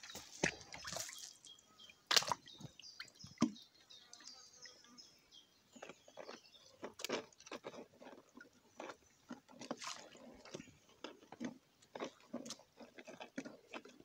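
Faint, irregular rustling and clicking of a wet mesh crayfish trap being handled, with light water splashes and drips as it is lowered into the lake.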